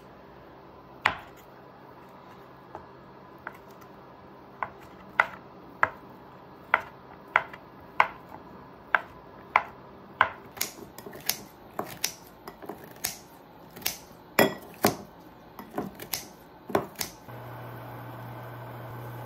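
Chef's knife cutting a block of Spam on a cutting board: single sharp knocks of the blade on the board about every half second, coming quicker as the slices are diced into cubes. Near the end they stop and a steady low hum takes over.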